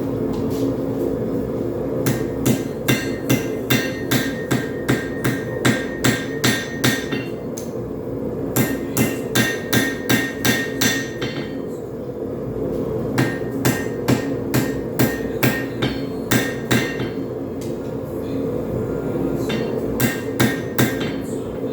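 Hand hammer striking a hot railroad spike on an anvil in four runs of quick blows, about three a second, each blow ringing. A propane forge runs steadily underneath.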